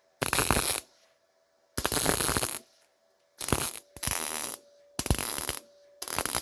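Welding on the steel windscreen pillar: about six short bursts of welding crackle, each about half a second, with brief pauses between, as a bead is laid in short runs.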